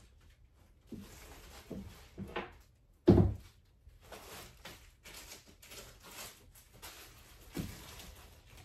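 Plastic bags of yarn rustling and shuffling as they are pushed onto a shelf, with a few soft knocks and one louder thump about three seconds in.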